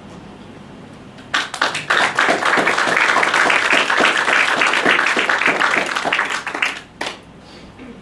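Audience applauding, breaking out about a second in and dying away shortly before the end.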